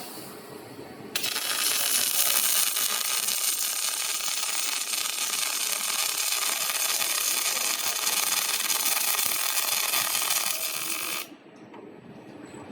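Robotic welding arc burning on an industrial fan impeller: a steady, crackling hiss that starts abruptly about a second in and cuts off sharply near the end, one weld pass of about ten seconds.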